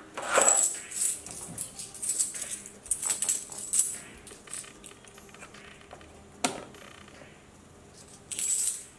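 Metal coins clinking together as they are taken from a cardboard coin bank's drawer and handled in the palm. There are bright jingles through the first few seconds, a single sharp click a little past halfway, and another short jingle near the end.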